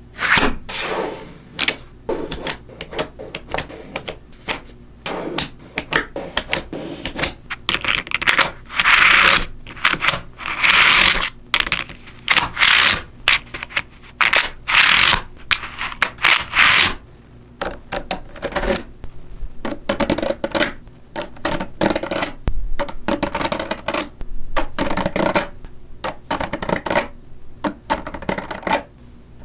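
Small magnetic metal balls clicking and snapping together under the hands. The clicks come irregularly, with denser rattling runs in the first half.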